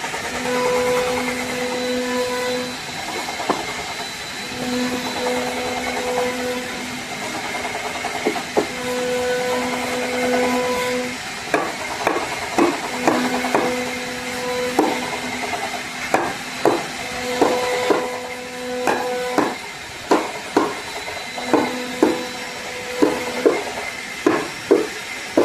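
A small power-tool motor, such as a drill or screwdriver, running in bursts of about two seconds with a steady hum. From about halfway, many sharp knocks on wood come between shorter bursts of the motor, as the slider is fixed in place.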